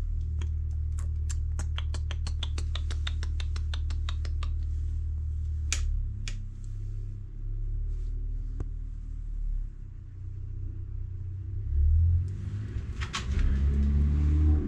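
A quick run of sharp ticks, about six a second for some four seconds, then scattered clicks and knocks as a folding bike's pedals and cranks are handled, over a steady low hum.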